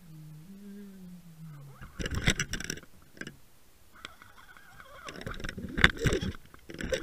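Underwater knocks and rushing water as a hooked pike thrashes on the line, in two loud spells, about two seconds in and again around five to six seconds in. A low hum that wavers in pitch runs through the first two seconds.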